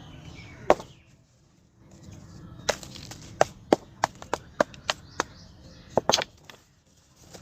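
A block of hard-set cement being struck over and over to break it. It gives one sharp knock, then after a pause a run of about ten knocks at roughly three a second, ending in a longer crunching hit. The cement set rock-hard from too much water in the mix, so it breaks with knocks instead of crumbling.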